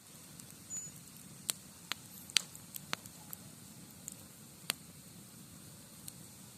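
Campfire burning: irregular sharp crackles and pops from the burning wood over a low, steady rumble.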